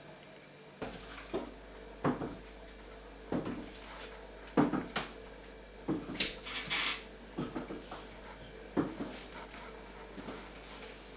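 Kitchen handling noises: a dozen or so irregular knocks and clatters of cupboard doors, dishes and pans being moved and set down, over a low steady hum.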